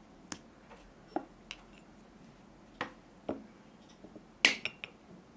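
Light clicks and taps of a plastic acrylic paint bottle being handled and squeezed over a ceramic saucer, a few scattered ones, with a louder sharp click about four and a half seconds in.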